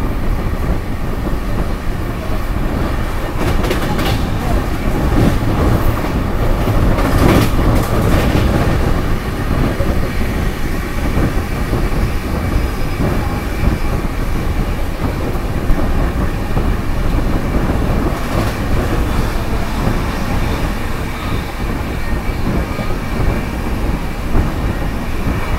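Passenger train running along the line, a loud steady rumble of wheels on rails with short bursts of clatter now and then.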